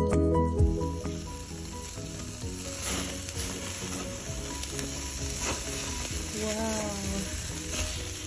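Lamb skewers sizzling on a wire grill over hot charcoal, a steady hiss with scattered sharp crackles. A music track cuts off just under a second in.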